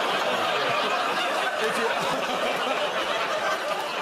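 Studio audience laughing, a sustained wave of crowd laughter that keeps going without a break.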